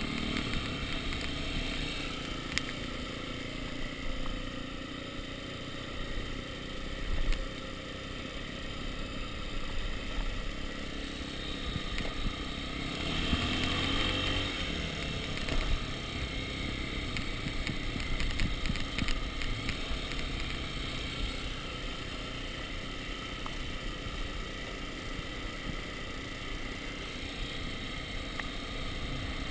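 Dirt bike engine running steadily while the bike is ridden down a rough, wet track, with the bike clattering and rattling over the bumps.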